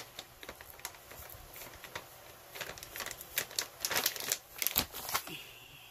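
Fingers working and breaking up dry baking soda in a glass bowl: irregular light scratches and crackling clicks, busier in the second half.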